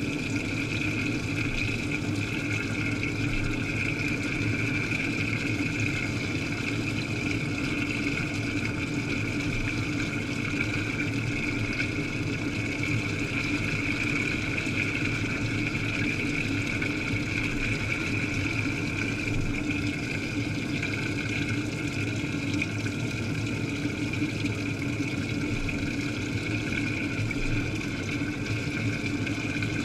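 Washing machine running through its wash, heard from inside the drum among the wet laundry: a steady machine hum with churning water, unchanging throughout.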